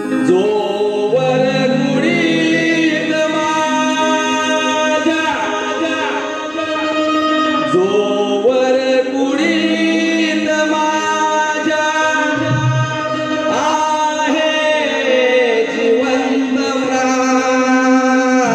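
Live Marathi Shakti-Tura stavan: a man singing a devotional folk song through a stage microphone with instrumental accompaniment, the voice rising and falling in long sung phrases over steady held tones.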